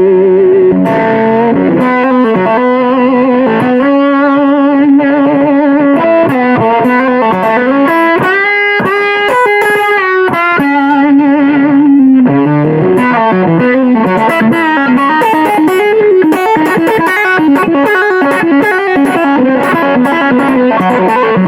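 Epiphone Les Paul electric guitar played through a Blues Driver overdrive pedal, a bluesy lead line. Held notes carry a wide vibrato, there are string bends, and about halfway through comes a fast run of high notes.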